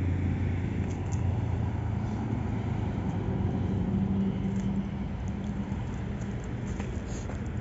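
A motor vehicle engine running steadily with a low hum, dropping off a little after about five seconds.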